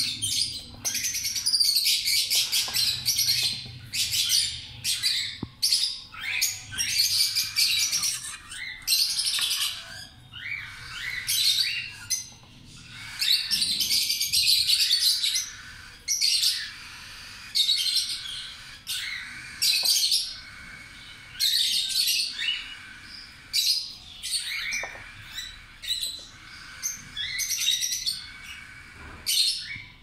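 Parrot chick's harsh, raspy begging calls, repeated over and over in bursts of about half a second to a second and a half, as it is spoon-fed formula.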